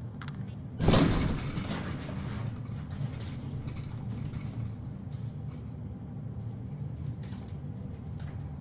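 A sudden loud thump about a second in, then a steady low hum with a few faint knocks.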